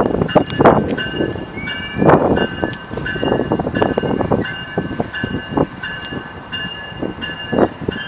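Double-deck NJ Transit commuter train passing: wheels clacking over the rail joints over a running rumble. A high tone sounds in short, repeated spells.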